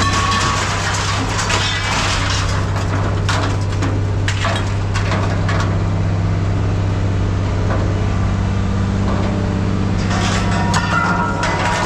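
Hydraulic scrap-metal baler running with a steady hum, with scrap metal crunching and cracking as it is crushed.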